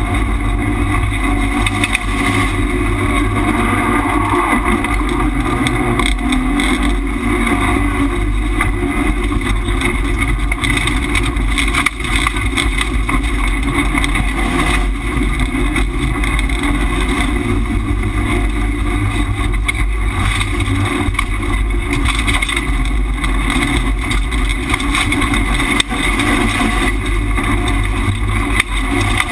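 Subaru Impreza rallycross car's turbocharged flat-four engine pulling hard at racing speed, heard from inside the caged cabin. The engine and road noise are loud and nearly constant, with two brief dips in loudness.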